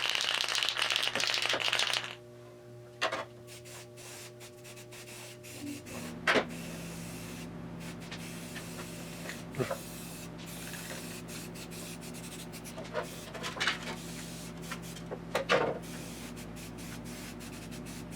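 Heat gun blowing hot air to dry rust converter on a steel body panel, then switched off about two seconds in. Afterwards a steady low hum with scattered short scrapes and knocks.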